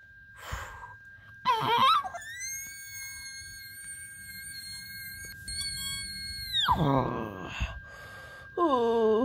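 A child's high-pitched scream, held on one steady note for about four seconds, then sliding sharply down in pitch.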